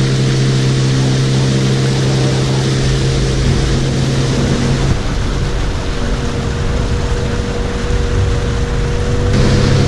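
Small boat's outboard motor running under way, a steady drone over the rush of water along the hull. About halfway through, the even engine tone gives way to a rougher low rumble for a few seconds, then the steady drone returns.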